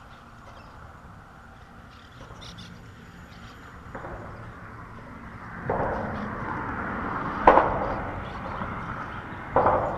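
Sharp knocks on a fishing kayak: a loud one about seven and a half seconds in and another near the end, over a rushing noise that grows louder from about four seconds in.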